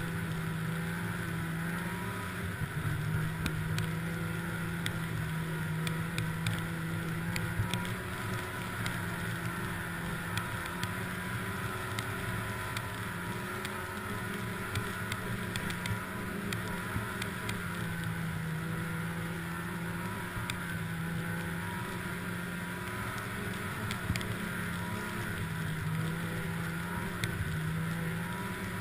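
Snowmobile engine running steadily at cruising speed, heard from the rider's seat. It is a continuous drone whose pitch rises and dips slightly as the throttle changes.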